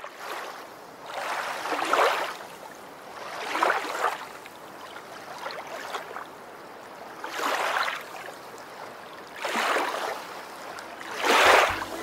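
Sea water washing and splashing in repeated surges, each swelling and fading within about a second, one every two to three seconds.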